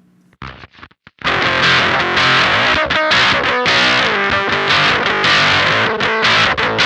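Electric guitar played through an octave fuzz pedal (Mask Audio Electronics Screws), its tone toggle in the up position for a bit more bass and a mid boost. A few short choked stabs, then heavily fuzzed riffing from about a second in.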